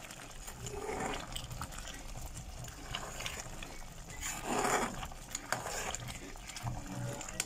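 Shrimp simmering in a pot of sauce while a metal spoon stirs through the liquid, with two louder swishes, about a second in and around four and a half seconds, and a few light clicks of the spoon against the pot.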